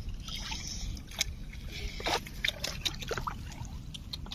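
Boots squelching and sloshing through wet mud and shallow water, with scattered light clicks and knocks.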